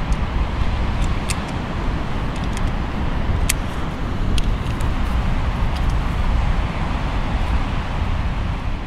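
Steady rumble of breaking ocean surf with wind buffeting the microphone. A few sharp clicks stand out, the loudest about three and a half seconds in.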